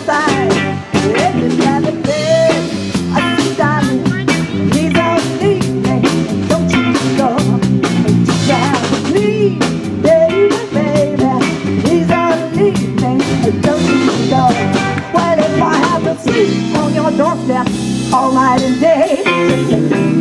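Live band playing a soul cover with no vocals: electric violin bowing the lead over electric guitar, bass guitar and a drum kit keeping a steady beat.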